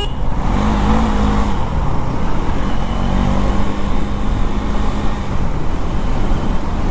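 KTM 390 Duke single-cylinder motorcycle engine running steadily at road speed under the rider, mixed with heavy wind and road rush and the surrounding traffic.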